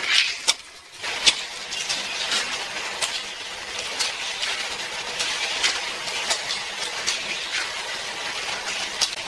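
Motorised booster units of a toy car track whirring steadily, with quick clicks and clatters of small toy cars running through the plastic track, starting about a second in.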